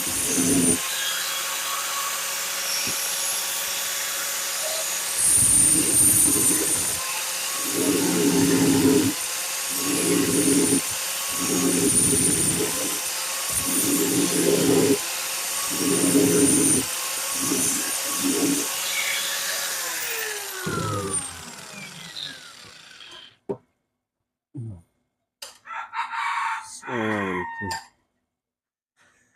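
Electric drill running steadily while drilling a mounting hole, then slowing with a falling whine and stopping about 22 seconds in. Through the run come about ten louder, lower sounds, each roughly a second long.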